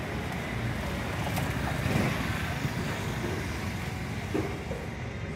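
Motor scooter passing close by and moving off down the street, its engine heard over a steady wash of street noise.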